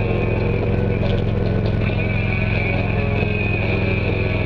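Motorcycle engine running steadily at low road speed, with music playing over it from 2-inch metal-housed motorcycle speakers.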